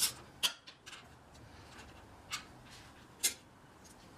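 A handful of separate sharp metallic clicks from a socket wrench and the tail-lamp bolt and bracket as a motorcycle tail lamp is unbolted: two in the first half second, one a little after two seconds and one just past three seconds, with faint handling noise between.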